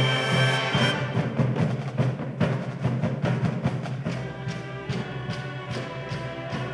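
University sports pep band playing in concert. A held chord at first gives way, about a second in, to drums striking a steady beat under the band.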